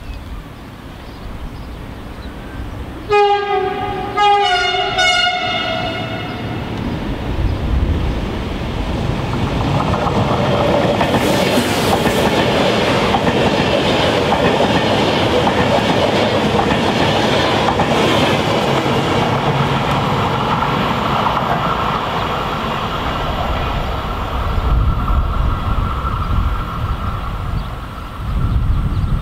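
Electric passenger train sounding two blasts of its horn at two different pitches as it approaches. It then passes close by at speed in a long, loud rush of wheel and air noise that eases off after about twenty seconds.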